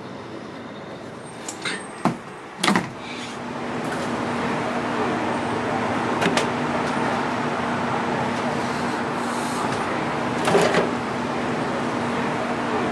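Split hardwood logs knocking against the steel firebox of a smoker as they are loaded, a few sharp clunks spread over the stretch. Under them is a steady rushing background with a low hum that grows louder a few seconds in.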